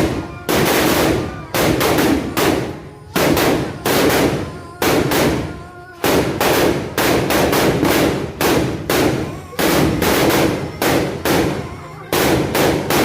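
A long run of loud, sharp bangs, each ringing briefly, in an uneven beat of about two to three a second.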